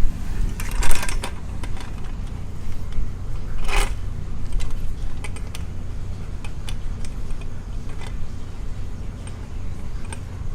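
Metal clinks and rattles of a motorcycle paddock stand being fitted under the swingarm, with one louder short scrape about four seconds in.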